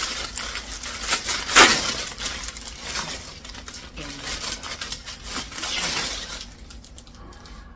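Packaging being handled and opened: irregular rustling and crinkling, with a louder crackle about one and a half seconds in, then quieter rustling toward the end.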